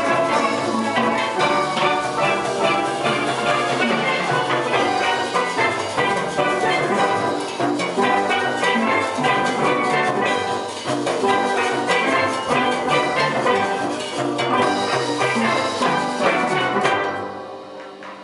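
A steel drum band of many steel pans playing a tune together in a steady rhythm. Near the end the piece stops and the last notes ring away.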